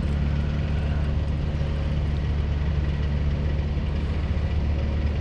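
Heavy construction machinery at a bridge site, its engine running steadily with a constant low drone.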